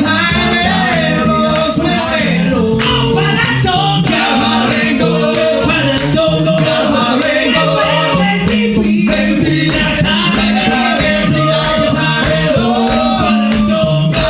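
Male a cappella vocal group singing in close harmony, several voices over a low bass voice.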